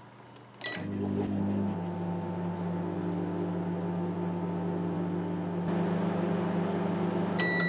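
Sharp microwave oven started with a short button beep, then running with a steady hum as it heats a glass of water: the oven works again now that its blown fuse has been replaced. A steady beep starts near the end.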